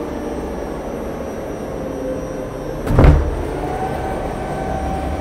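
Theatre stage lift rising from the under-stage trap room, its drive running with a steady low rumble and hum. A loud clunk comes about three seconds in.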